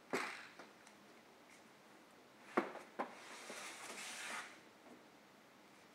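Quiet room with a brief rustle, then two sharp clicks about half a second apart, followed by about a second of soft, hissing rustle.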